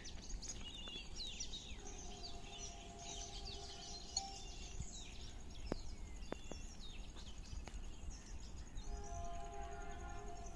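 Birds chirping and twittering over a low outdoor rumble. A distant train horn sounds twice as a steady, held note of about two seconds, once early on and again near the end.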